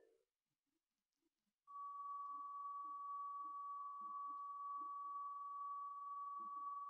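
A single steady electronic tone at one unchanging pitch, like a test-tone beep, begins about a second and a half in after dead silence and holds.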